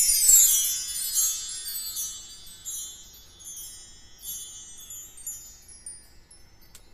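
Bar chimes (percussion chimes) swept in a falling glissando, the metal bars ringing on and slowly fading, with light shimmering re-touches.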